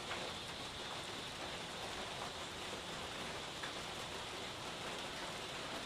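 Steady rain falling: an even hiss with a few faint drop taps.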